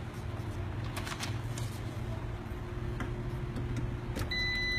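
A few light clicks and rustles of handling over a steady low hum, with a short high electronic beep near the end.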